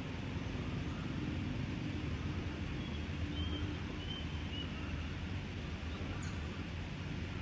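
Steady low-pitched rumbling outdoor background noise, with a few faint short high chirps about three to four seconds in.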